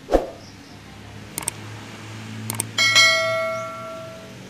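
Subscribe-button animation sound effect: two quick pairs of mouse clicks, then a bright notification-bell ding that rings and fades over about a second and a half. A dull knock comes right at the start.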